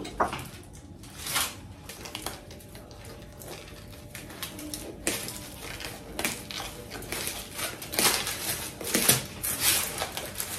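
Kitchen scissors cutting through the crust of a freshly baked, sesame-topped barbari loaf: irregular crunching snips and crackles, coming thicker and louder in the second half.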